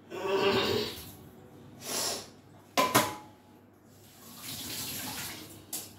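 Water running from a kitchen tap in several spells, with a sharp metallic clink that rings briefly about three seconds in.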